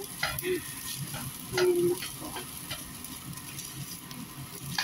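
Plastic spatula stirring and scraping fried rice around a hot nonstick pan, with a light sizzle as the rice reheats. Short scrapes come every second or so, the loudest about a second and a half in.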